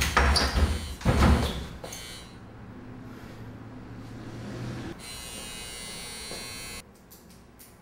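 Two heavy thuds on a wooden apartment door in the first two seconds, then about five seconds in an electric doorbell buzzer sounds for nearly two seconds and cuts off suddenly.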